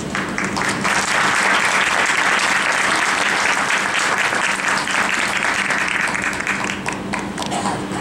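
Audience applauding, a dense clatter of many hands that swells about half a second in and thins out near the end, over a steady low electrical hum.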